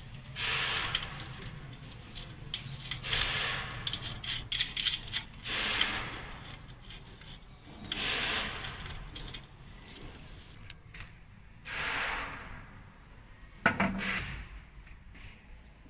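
Hand work on machine parts during disassembly: about five rough rubbing or scraping strokes of a second or so each, with scattered light clicks and metal clinks and one sharp knock near the end.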